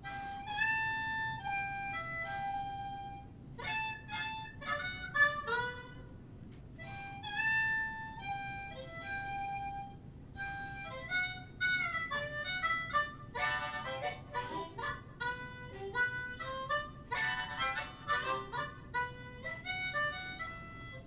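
Diatonic harmonica played solo: a melody of separate notes, some held and some quick, with chords in the middle and near the end.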